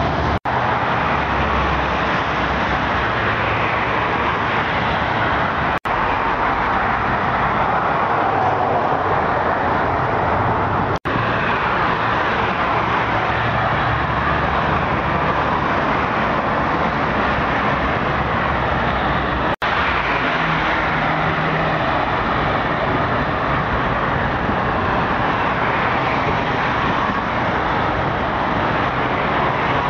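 Steady street traffic noise, broken by four brief gaps.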